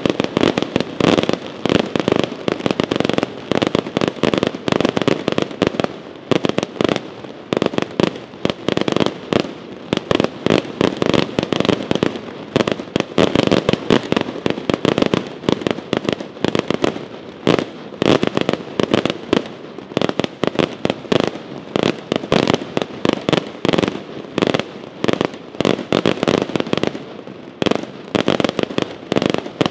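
Aerial fireworks display: a dense, continuous barrage of shell bursts and rising comets, many sharp bangs a second with no let-up.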